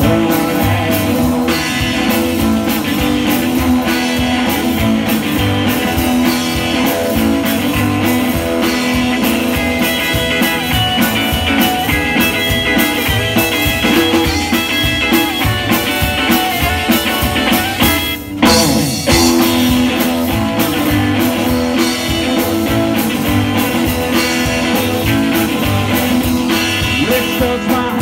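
Live rock and roll band playing an up-tempo number on upright bass, electric guitars and drum kit. The band stops briefly about eighteen seconds in, then comes straight back in.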